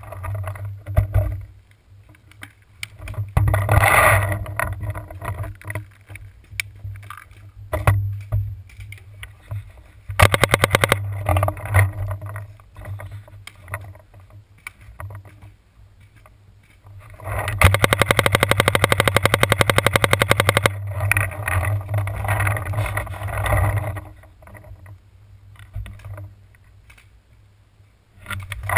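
Paintball markers firing in rapid strings of even pops: a short string about ten seconds in and a longer one of about three seconds past the middle.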